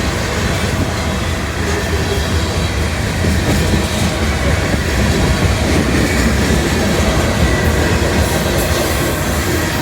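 Freight train cars rolling past, a loud steady rumble of steel wheels on the rails with some clacking.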